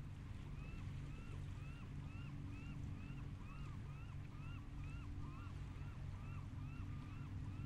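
A bird calling over and over, about two short arched notes a second, over a steady low rumble.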